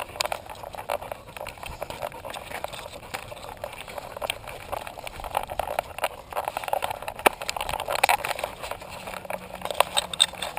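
Handling noise from an action camera mounted on a climbing dog's harness: a continuous run of irregular knocks, clicks and scuffing as the dog moves up a dirt trail.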